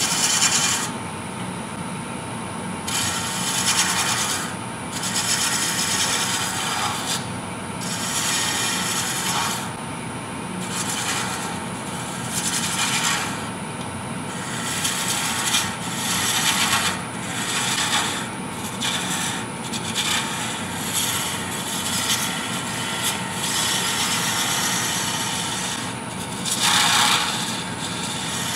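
Wood lathe running while a hand-held turning tool cuts the small spinning spindle of a wooden bell ornament. The tool goes on and off the wood in repeated passes a second or two long, each a hissing scrape of shavings over the lathe's steady hum.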